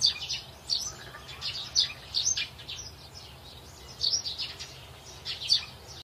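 A group of broiler chicks peeping: many short, high, falling chirps overlapping in irregular clusters.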